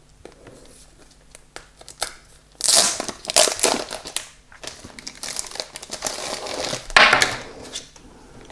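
Rustling of paper and plastic collectible packaging being handled, with scattered small clicks and taps. There are louder bursts of rustling about three seconds in and again about seven seconds in.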